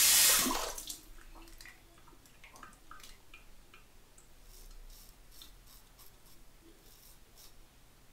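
Tap water running into a sink, shut off under a second in, followed by faint scattered clicks and small handling taps.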